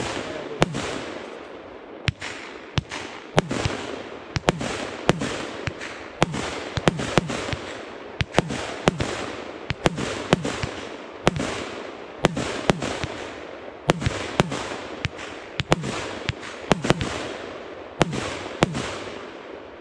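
Evolution Fireworks Tempest, a 30 mm 80-shot compound fireworks cake, firing shot after shot. A sharp bang comes every half second or so as each shell bursts, with a continuous hiss between them.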